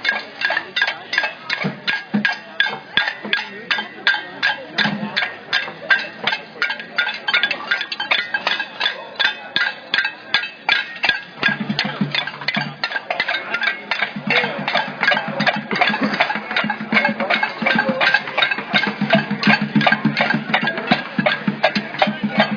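Protest noisemakers being struck in a steady rhythm, about three hits a second, with crowd voices joining about halfway through.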